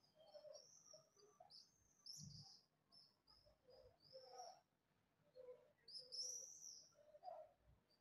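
Faint, high-pitched screaming calls of swifts flying overhead, a rapid series of short screams, mixed with lower chirps from other birds. Two soft low thumps, a couple of seconds in and near the end.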